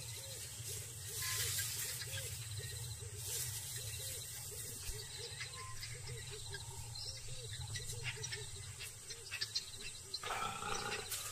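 Leopards feeding on a carcass: scattered clicks and crunches of chewing over a steady bush drone. A louder animal call starts near the end.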